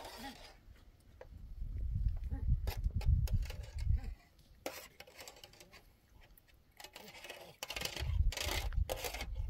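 Wind buffeting the microphone in gusts: an uneven low rumble that swells for a couple of seconds, dies down, and returns near the end, with a few faint clicks in between.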